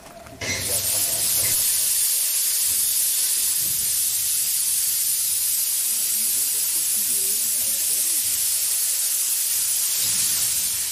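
Small narrow-gauge steam locomotive letting off steam: a loud, steady hiss that starts about half a second in, as the tail of its whistle dies away.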